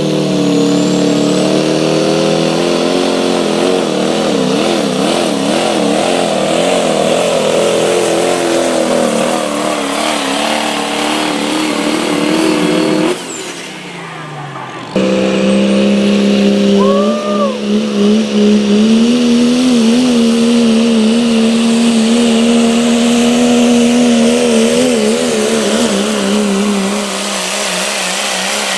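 Modified diesel pickup trucks at full throttle pulling a weight-transfer sled, the engine note wavering up and down as the truck fights for traction. About 13 seconds in the sound breaks off briefly and another truck's pass starts, its engine holding a steadier, slightly higher note.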